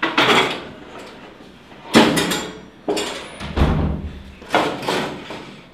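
A series of sharp thumps, roughly one a second, the one near the middle deeper than the rest.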